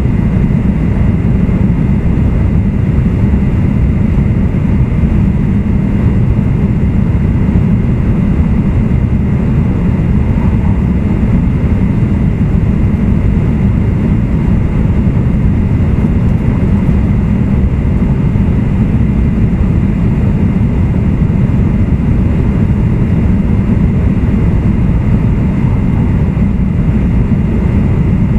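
E2 series Shinkansen car running at speed, heard from inside: a steady low rumble of wheels on rail and running gear, with faint steady whines above it.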